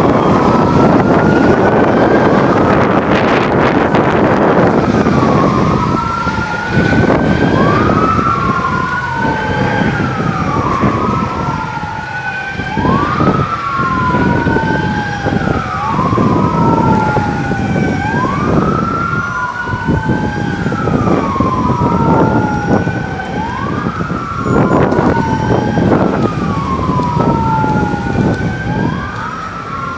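Police car sirens wailing, at least two overlapping, each rising and falling about every two seconds. A dense rushing noise covers the first few seconds.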